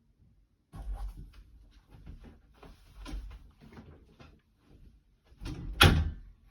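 Handling noise: a run of small knocks, taps and rubbing starting about a second in, with one louder sharp knock near the end.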